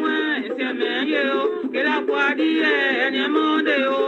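A Wê choir singing in several voices, one voice gliding above steadier lower parts.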